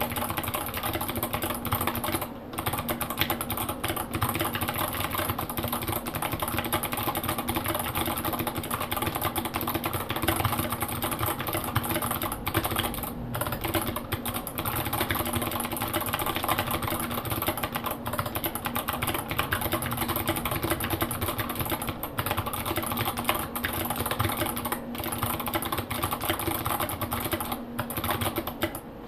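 Rapid, continuous typing on a Tofu WKL mechanical keyboard with Kailh Box White clicky switches and SA-profile keycaps, the keystrokes clicking in a dense stream broken by a few short pauses.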